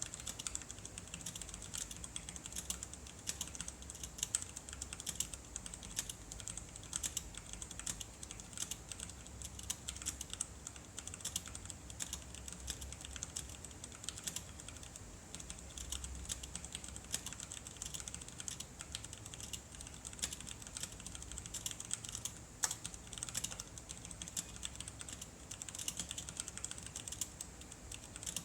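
Continuous typing on an ikbc Pok3r mechanical keyboard with Cherry MX Brown switches: a quick, uneven run of key clacks, with one sharper click about 22 seconds in.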